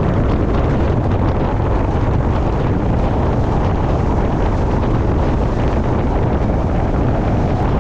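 Heavy, steady wind rumble on the microphone from a boat running at speed on a windy river, with the boat's motor running underneath.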